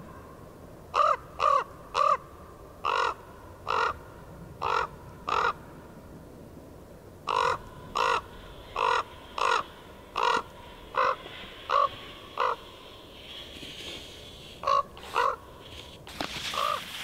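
A crow cawing over and over, short harsh calls coming in runs of two or three, about twenty in all. A rushing noise comes in near the end.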